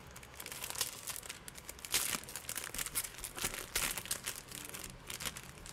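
Clear plastic packaging bag crinkling and rustling as it is opened and handled: a run of irregular crackles, the loudest about two seconds in.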